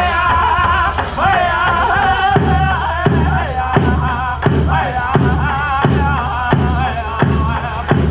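Powwow drum group singing a chicken dance song in high, wavering voices. About two seconds in, the big drum comes in with steady beats, a little under one and a half a second.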